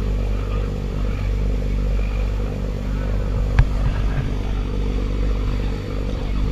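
Boat engine running steadily at cruising speed, a low drone with the rush of wake water and wind over it. A single sharp knock sounds about three and a half seconds in.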